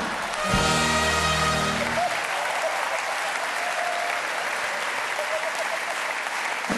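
Audience applauding steadily. A short held chord of music sounds over the clapping about half a second in and lasts about a second and a half.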